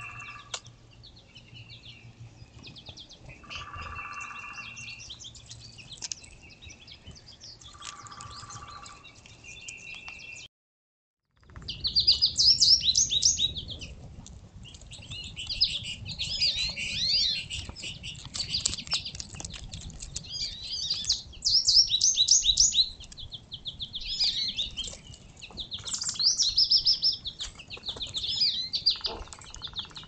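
Songbirds singing, a mix of chirps and rapid trills from several birds. In the first part a call repeats about every four seconds. After a short break about ten seconds in, the singing is louder and busier.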